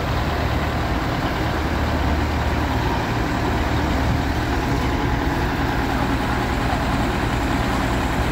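Diesel engine of a truck-mounted well-drilling rig running steadily with a low, even hum while it powers the slow raising of the rig's mast.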